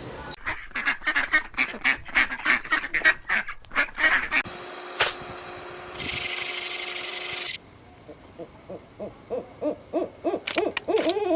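Animal calls from a series of spliced sound clips: a fast run of repeated honking calls for about four seconds, a steady tone with a click, a short burst of hiss, then another run of calls that grow louder near the end.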